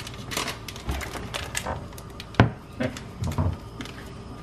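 Metal spoon and knife clicking and tapping against a saucepan as seasoning is stirred into simmering chili: a string of irregular light clicks, with one sharper knock about two and a half seconds in.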